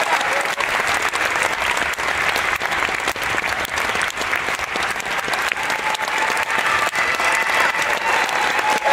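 Theatre audience applauding steadily, a dense, continuous clatter of many hands clapping.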